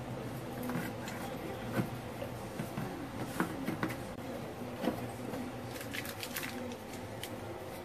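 Scattered light clicks and taps of small metal driveshaft CV-joint parts being handled on a workbench, a few at a time, over a steady background hum.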